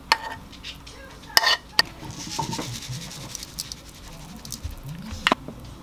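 Cooking utensils knock and scrape against a nonstick frying pan and a plastic bowl as food is tipped out, a few sharp clicks in the first two seconds. Then sesame seeds are sprinkled from a container, a fine rattling hiss for about two seconds, with one more sharp click near the end.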